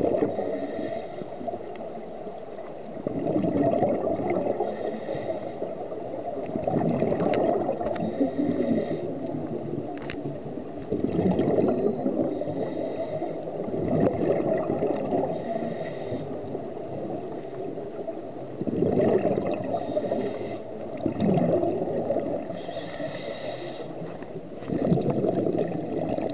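Scuba diver breathing through a regulator underwater: exhaled bubbles gurgle in bursts about every three to four seconds, with a fainter hiss of inhalation between them. A couple of sharp clicks come partway through.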